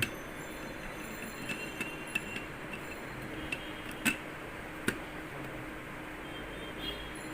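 Scattered light clinks of a utensil against a glass, a few seconds apart, the loudest about four and five seconds in, over a faint steady hiss.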